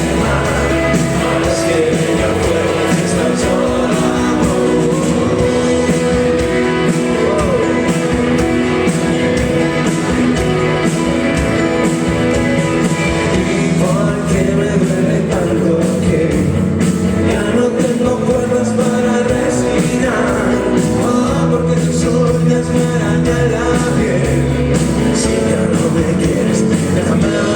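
Live rock band playing a song at full volume, with a singer's voice coming in at times.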